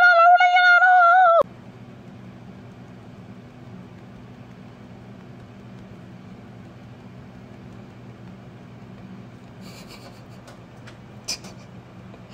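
A cat's long, loud meow, held at a steady pitch, cut off abruptly about a second and a half in; then a low steady hum with a sharp click near the end.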